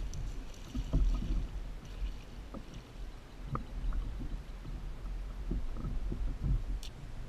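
A hooked largemouth bass splashing at the surface beside a kayak early on, then a series of short, irregular low knocks and thumps on the kayak as the fish is brought in and lifted aboard.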